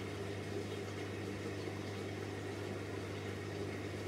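A steady low hum over a faint hiss, unchanging, with no knocks or movement sounds.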